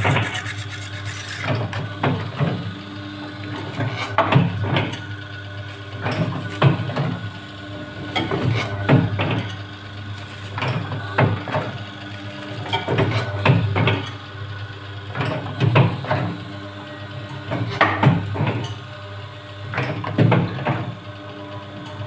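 Double-die paper plate machine running: a steady motor hum under a cluster of knocks that repeats about every two seconds, one for each press stroke of the dies.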